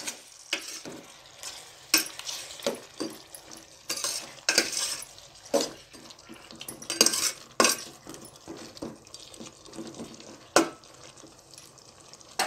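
A spoon stirring and turning chicken pieces in a stainless-steel pot, with irregular clanks and scrapes against the pot over a faint sizzle of the chicken frying in oil.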